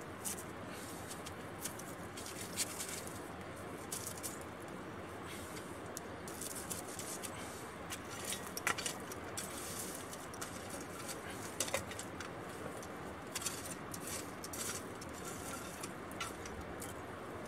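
A metal folding camp shovel scraping and crunching through charcoal and ash in a campfire pit, raking embers over a foil-wrapped potato, with scattered clinks and crinkles over a steady background hiss.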